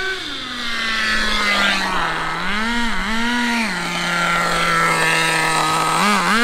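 HSP nitro rally car's small nitro engine: its pitch falls over the first two seconds, then it runs steadily with two short throttle blips, and two more near the end as the car comes by close. The two-speed gearbox is not shifting into second gear.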